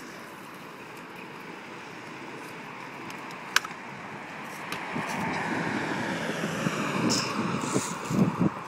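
Kick scooter's small wheels rolling on concrete pavement, the rumble growing louder from about five seconds in, with a sharp click near the middle and a few knocks near the end.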